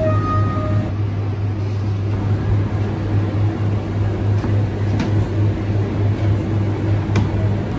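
Steady low hum of kitchen machinery, with two sharp knocks, about five seconds in and again about two seconds later, as a rocker pizza knife comes down through the crust onto a plastic cutting board.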